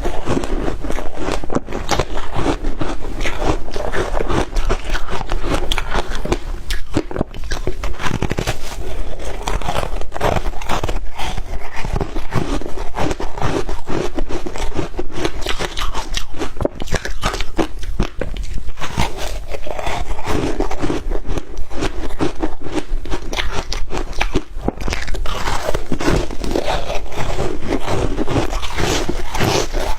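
Shaved ice being bitten and chewed: continuous dense crunching and crackling.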